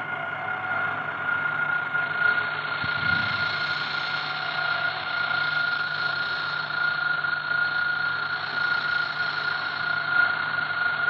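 Experimental noise music from a cassette: a dense, steady wall of hiss with several held high tones and a low hum beneath, and a brief low swell about three seconds in.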